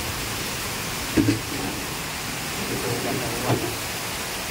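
Heavy tropical downpour: a steady, dense hiss of rain. Two brief louder sounds stand out, one a little over a second in and one about three and a half seconds in.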